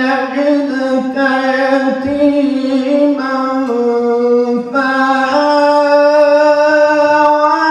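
Solo male voice chanting in the melodic Quran-recitation (tajweed) style into a handheld microphone: one long, unbroken phrase held on a steady pitch with small steps and ornaments.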